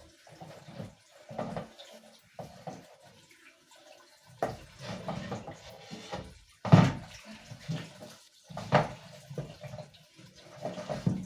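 Fridge shelves and trays being washed by hand in a sink: water splashing and sloshing, with several sharp knocks of the items against the sink, the loudest about two-thirds of the way through.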